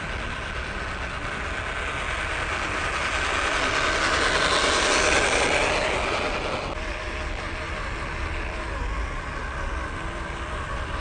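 WPL B16 RC truck's electric motor and gearbox whining steadily as it hauls a heavily loaded trailer. The whine swells to its loudest about halfway through, then drops abruptly and carries on more quietly.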